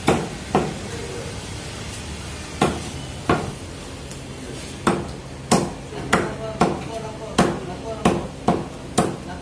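Meat cleaver chopping chicken into pieces on a chopping block: about a dozen sharp strikes, irregularly spaced, coming faster in the second half.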